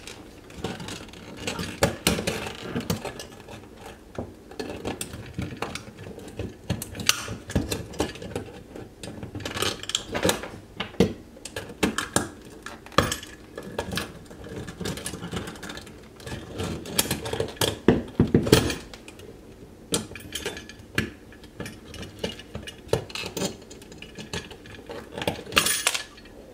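An old metal electrical box being worked loose and pulled out of a drywall opening: irregular metallic clinks, knocks and scraping.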